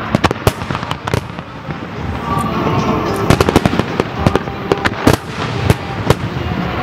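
Aerial firework shells bursting in quick succession, sharp bangs overlapping one another over a steady crackle. The bangs come thickest about a second in, again around three seconds in, and near the end.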